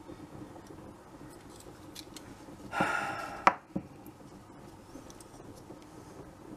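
Steel caliper's slide run along its beam in a brief scraping rasp about halfway through, stopping with a sharp metal click and then a lighter tap, as it is set against a brass airgun regulator to gauge the depth of its adjusting screw.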